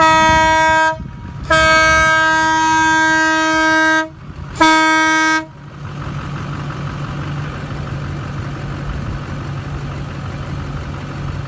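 Single-trumpet train air horn sounding three loud blasts of one steady pitch: a short one, a long one of about two and a half seconds, then another short one. A steady low hum continues after the last blast.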